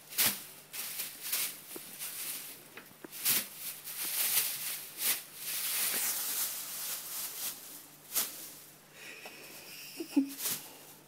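Clear plastic bag crinkling and rustling in irregular bursts as a Maine Coon cat wriggles around inside it.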